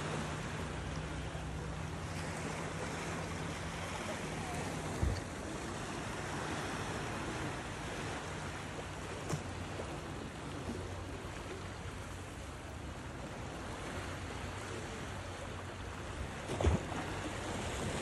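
Small waves lapping against shoreline rocks on a calm sea, a steady wash of water. A low steady hum runs under it for the first few seconds, and a few soft knocks stand out, the loudest near the end.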